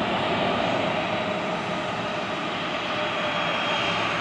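Boeing 737-800's CFM56-7B turbofan engines running at taxi power as the airliner taxis: a steady jet rushing noise, with a thin high whine coming in about three seconds in.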